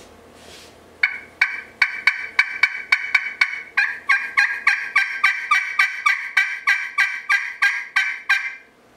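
Glass friction pot turkey call run with a striker, giving a long even series of turkey yelps, about three a second, starting about a second in. The glass surface has just been roughed with a conditioning stone and the striker tip with green Scotch-Brite.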